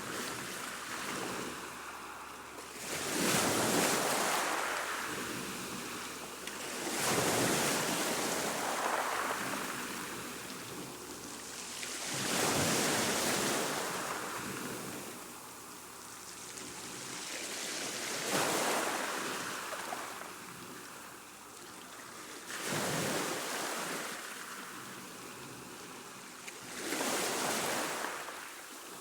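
Choppy sea washing in waves: a rushing hiss that surges about every four to five seconds, six times, each swell building quickly and then draining away.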